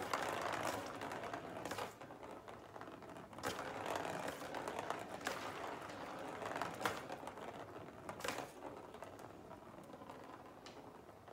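A small plastic ball rattling as it rolls around the plastic track of a cat's circular ball-track scratcher toy, batted along by a cat's paw. The rolling starts and stops several times, with sharp clicks now and then, and dies away near the end.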